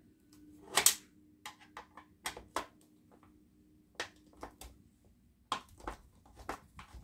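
Scattered clicks and light metallic taps from a hand screwdriver turning screws out of plastic mounts and from the perforated steel shield of a CRT monitor being handled, with one sharper click about a second in.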